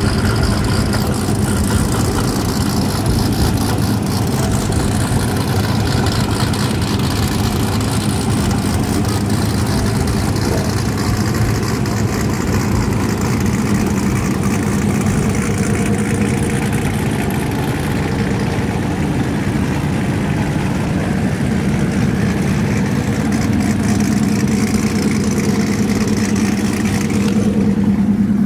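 Modified street cars' engines idling with a steady low drone.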